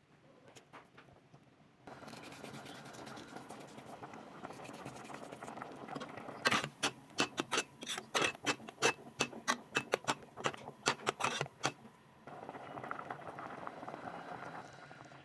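A kitchen utensil scraping and knocking against a cooking pan in quick repeated strokes for about five seconds in the middle, with a steady hiss of cooking before and after.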